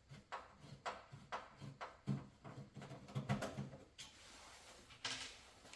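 Torx screwdriver backing out a screw from the front panel of a Miele washing machine: a run of short clicks and scrapes, about two a second, then a longer scraping rustle near the end.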